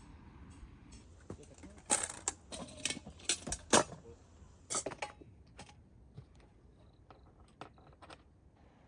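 A quick run of sharp metallic clinks and knocks from camping gear being handled, bunched between about two and five seconds in, then a few faint ticks.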